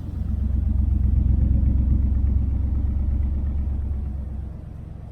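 Swapped-in Silverado truck engine in a 1968 Nomad wagon, running at idle through side-pipe exhausts as a steady low rumble. It gets louder a moment in and drops back near the end. The engine has a long-standing miss of unknown cause, which at this point seems to run good.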